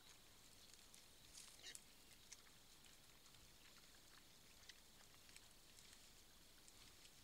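Near silence: a faint steady hiss with a few short, faint high clicks and ticks, the loudest a small cluster about a second and a half in.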